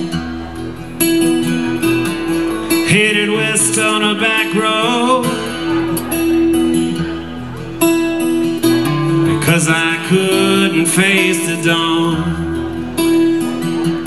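Solo acoustic guitar strummed steadily, with a man singing over it in two phrases, about three seconds in and again about nine seconds in.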